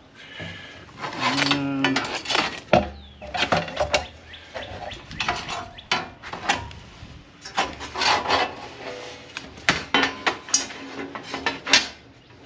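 Heavy steel panels of a Lifedoo Urod Fire flat-pack fire pit being handled and slotted together: a string of irregular metal clanks, knocks and scrapes, with brief ringing from the plates.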